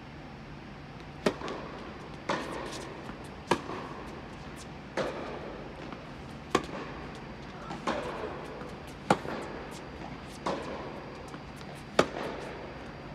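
Tennis rally on an indoor hard court: the ball is struck back and forth by rackets and bounces on the court, giving sharp pops about every second and a bit, each with a short echo from the hall. The loudest pops are the near player's racket strikes, and softer ones come from the far end.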